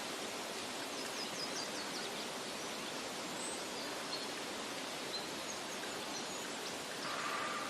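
Steady rushing of flowing water, like a stream or waterfall, with faint bird chirps scattered over it.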